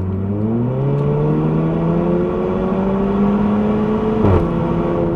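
Turbocharged 2.0-litre four-cylinder of a 2012 VW Golf GTI 35th Edition with the resonator deleted, pulling hard under acceleration with the engine note climbing. A little over four seconds in, the DSG gearbox upshifts with a short crack, and the revs drop before pulling on again.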